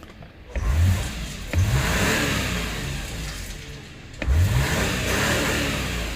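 A 2006 Subaru Tribeca's 3.0-litre flat-six engine is revved in three throttle blips, about half a second, a second and a half, and four seconds in. Each time the pitch rises and then falls back toward idle. It revs cleanly, with no sign of the cylinder 1 misfire it was being checked for.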